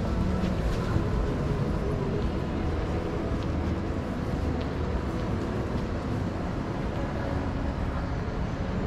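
Steady low rumble of urban ambience, with a few faint clicks.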